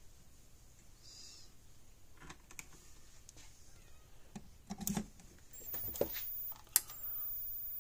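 Scattered clicks and light knocks of test leads being clipped onto a fence energizer's terminals and a handheld fence voltmeter being handled, with a louder knock about five seconds in. In the last couple of seconds a faint steady high whine comes in, with two sharp ticks.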